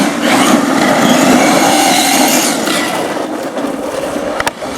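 1/5-scale electric FG monster RC truck running, its brushless motor and drivetrain whining over loud tyre and ground noise, cutting out for a moment near the end.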